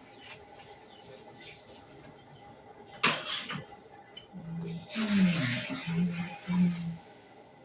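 Clipper blade being sharpened: a sharp scrape about three seconds in, then a couple of seconds of steady rasping over a low hum.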